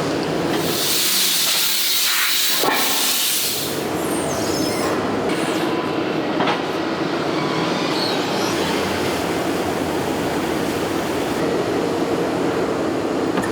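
Factory machinery running steadily in a bearing-ring forging plant, with a loud hiss, like a blast of air or steam, from about half a second in to nearly four seconds in, and a few sharp clicks after it.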